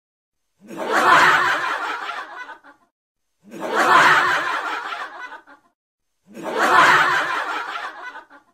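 Snickering laughter, three alike bursts of about two seconds each with dead silence between them, typical of a laugh clip dubbed over the picture.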